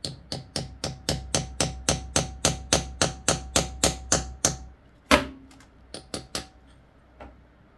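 A hammer taps a steel tool into a seized stainless-steel sump plug to cut a notch in it: about four quick strikes a second for some four and a half seconds, with a faint metallic ring under them. Then comes one harder blow and a few lighter taps.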